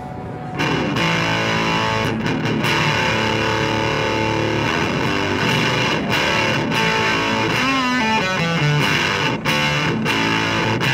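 Electric guitar played through an EarthQuaker Devices Fuzz Master General octave fuzz pedal on its germanium diode setting: a really grainy, distorted fuzz tone. The playing starts about half a second in, with a few bent notes past the middle.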